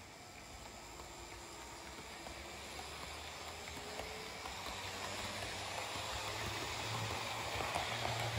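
Roco class 218 H0-scale model diesel locomotive running with its sound function switched off: the whir of its electric motor and gearing, with a low hum, grows steadily louder as it comes closer. The motor has a distinct running noise that is not silky-smooth.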